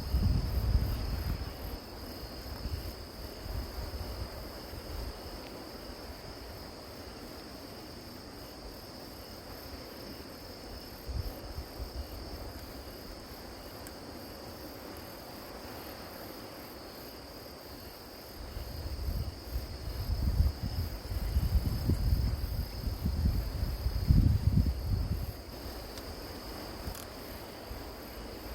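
Grass insects such as crickets chirring steadily in a continuous high trill. A low rumble swells in at the start and again for several seconds past the middle, louder than the insects.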